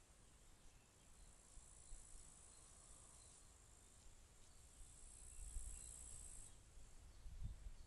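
Faint, steady, high-pitched chirring of insects in meadow grass, swelling a little past the middle, with a low rumble near the end.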